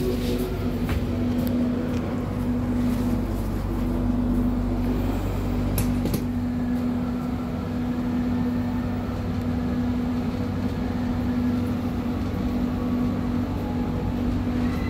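Steady machinery hum inside a passenger train carriage, from the air conditioning and running equipment: a low drone under a steady mid-pitched tone. A few light clicks come in the first few seconds.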